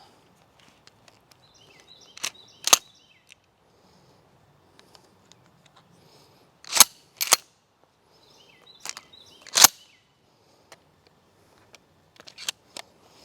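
Sharp metallic clacks of a Remington 870 12-gauge pump shotgun being handled and made ready, in four pairs about half a second apart, each with a brief metallic ring.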